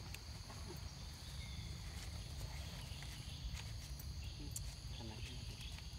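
Quiet outdoor background: a steady, high insect drone over a low rumble, with a few faint taps and a brief soft squeak about five seconds in.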